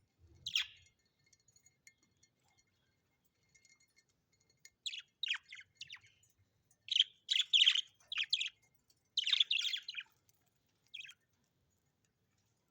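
A bird chirping in short calls: a single call about half a second in, a quick run of calls through the middle, and one more near the end.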